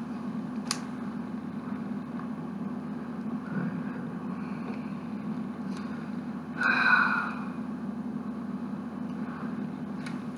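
A few sharp plastic clicks of Lego bricks being handled and pressed together, over a steady low hum. About two thirds of the way through there is a brief vocal sound from the builder.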